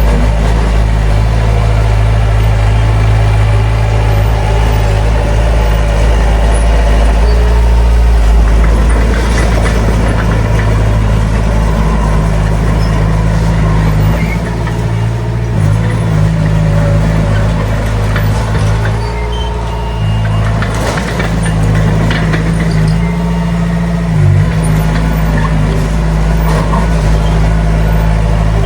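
Heavy diesel engine of earthmoving machinery running loud and steady under load, its pitch shifting now and then, with a few short metallic clanks.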